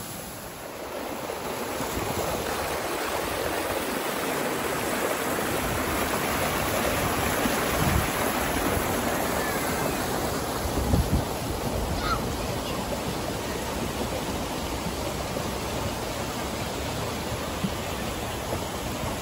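Steady rush of running water from a pool's artificial rock waterfall and water slides, swelling over the first couple of seconds and then holding even. Two short low bumps come about eight and eleven seconds in.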